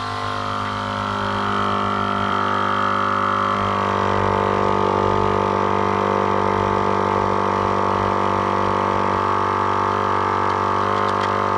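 12-volt portable air compressor running steadily under load while inflating a tire, a constant-pitched motor-and-piston drone that grows a little louder over the first few seconds.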